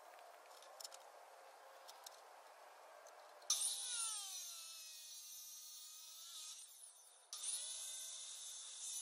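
Chop saw cutting 3-inch 304 stainless steel exhaust tubing, a high metallic screech. It starts suddenly about three and a half seconds in and eases off, then a second cut starts abruptly about two seconds before the end.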